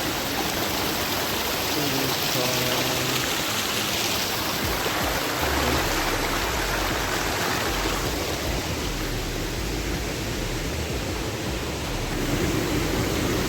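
Mountain stream rushing, a steady loud rush of water; the stream is running a little high.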